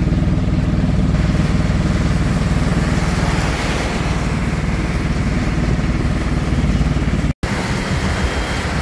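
A car's engine and road noise heard from inside the moving car, a steady low rumble. After a brief break near the end, a rushing hiss of tyres and rain on the wet road takes over.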